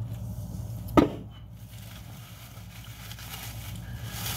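A single sharp knock about a second in, an aluminium drink can set down on a hard surface after a swig, over a steady low hum.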